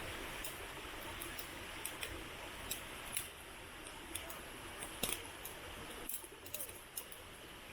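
Wood fire crackling with irregular sharp pops and snaps over a steady rushing hiss; the hiss drops about six seconds in.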